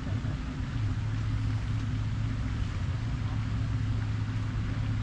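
A steady low mechanical hum over a hiss of background noise.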